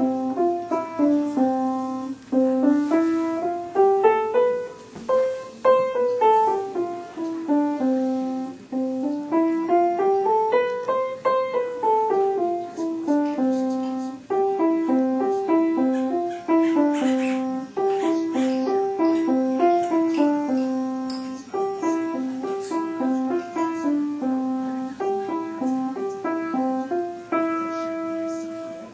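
Upright piano played one-handed: a simple melody of single notes in runs that climb and fall, with a few notes held longer near the end.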